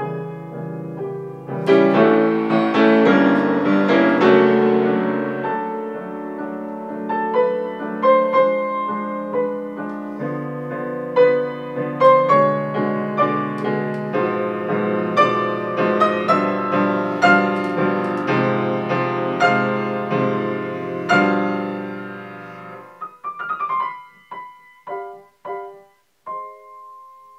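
Grand piano played with full chords and running notes, then thinning out to a few separate notes about three-quarters of the way through, ending on a held note.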